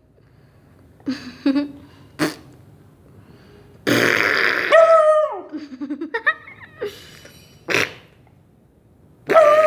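A raspy snore sounds about four seconds in, and a puppy answers straight away with a howl that holds its pitch and then falls, followed by short whimpering cries. Another snore and howl start near the end.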